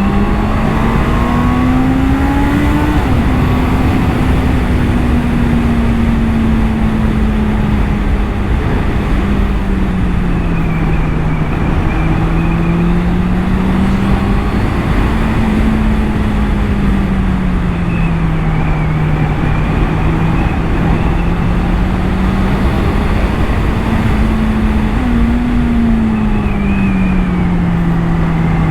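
Honda CBR650R's inline-four engine running while the motorcycle is ridden, its note drifting gently up and down with the throttle several times, under a steady rush of wind and road noise.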